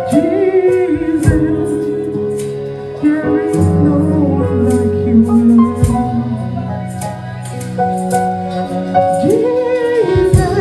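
Live gospel praise-and-worship music: women singing into microphones over a band with a steady beat.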